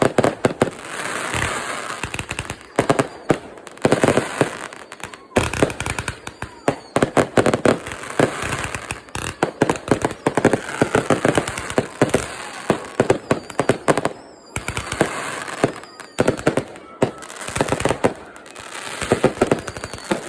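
Fireworks going off in a rapid, dense series of cracks and bangs, with brief lulls about five seconds in and about fourteen seconds in.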